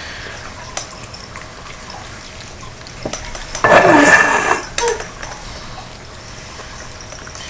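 Dry cat food poured by hand into a plastic pet bowl: a brief rattle of kibble about halfway through, with a few light taps and clicks before and after.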